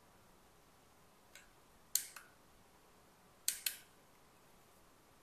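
Buttons on a small Ulanzi RGB LED video light clicking as it is switched through its colour modes: a faint click a little over a second in, then two quick double clicks, about two and about three and a half seconds in.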